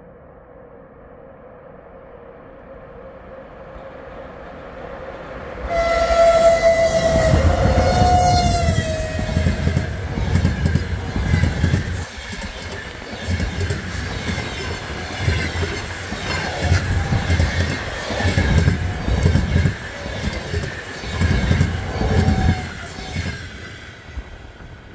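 ChS7 electric locomotive and its passenger coaches passing at speed. A rumble builds, and about six seconds in the locomotive arrives with a horn tone that drops in pitch as it goes by. The coach wheels then clatter over the rail joints in regular beats, fading near the end.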